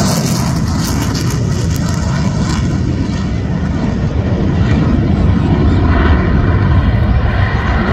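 Loud, steady jet noise from a Sukhoi Su-30MKM fighter's twin AL-31FP turbofan engines as it makes a low pass and pulls up into a steep climb.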